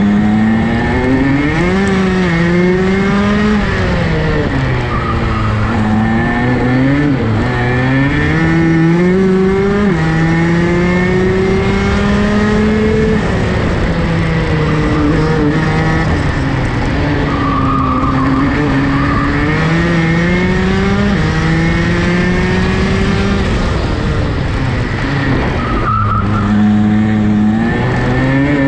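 Rotax DD2 race kart's 125 cc two-stroke engine, heard onboard, revving up on the straights and dropping off into the corners: the pitch climbs steadily and falls away several times, over a steady rush of tyre and wind noise.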